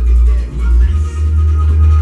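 Bass-heavy electronic music played loud through the JBL Bar 800's subwoofer, deep sustained bass notes that step up in pitch about a second in.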